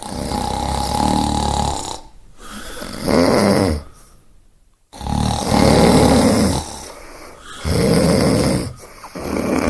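A sleeper snoring loudly, about five snores in a row, with a short pause near the middle.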